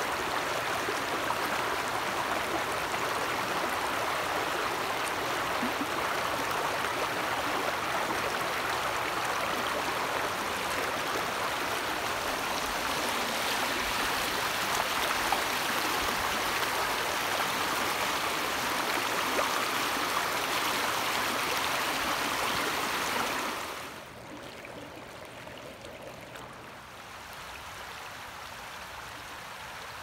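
Shallow river rapids rushing and splashing over rocks close by, a steady loud rush of water. About three-quarters of the way through it drops suddenly to a softer, more distant flow.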